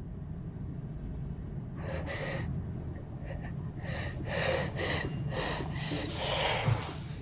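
A woman's gasping breaths, a string of sharp in-and-out breaths that starts about two seconds in and comes faster toward the end, over a steady low rumble. A short low thump comes near the end.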